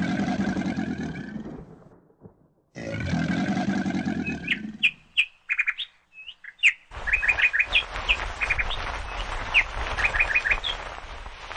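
Two long, low animal growls, each about two seconds long, in the first few seconds. From about halfway, birds chirp in quick runs over a steady background hiss.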